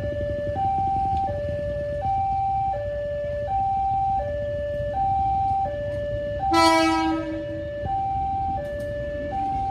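Level-crossing warning siren sounding a steady alternating high-low two-tone, each tone about 0.7 s, over a low rumble. About 6.5 s in, a single horn blast of about a second sounds over it.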